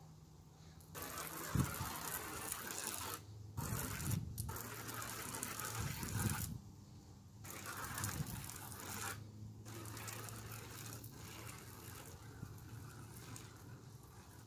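Spray paint can spraying onto a wooden fence: a hiss in several long bursts with short breaks between them.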